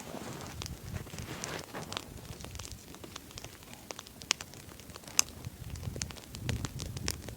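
Log fire of a 'Swedish candle' campfire crackling, with irregular sharp pops and two louder pops around the middle. A low rumble comes in near the end.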